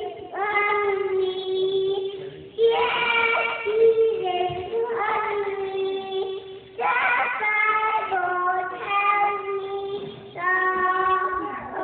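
A three-year-old child singing, holding long notes in phrases of a few seconds each, with short breaks between them.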